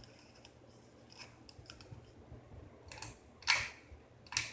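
A few sharp clicks, the loudest near the end, as a switch is worked to try a newly installed ceiling fan's light, which is not coming on.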